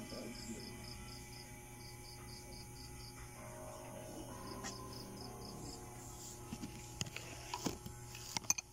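Insect chirping: short high pulses, about four a second, in bursts over a faint steady hum. Near the end come a few sharp clicks and knocks, the last ones the loudest.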